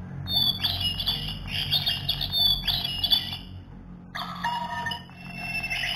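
Battery-powered toy singing bird in a plastic cage playing electronic chirps and whistles: about three seconds of high warbling, a short pause near four seconds in, then another run of chirps.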